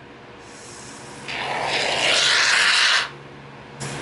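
Aerosol can of Loctite expanding foam sealant dispensing through its straw applicator. The hiss starts faint about half a second in, turns loud for about a second and a half, and cuts off sharply at about three seconds. A second burst begins just before the end.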